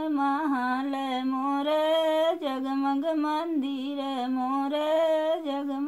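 A woman singing a sohar, a folk song for a birth, alone and unaccompanied, in long held notes that bend up and down.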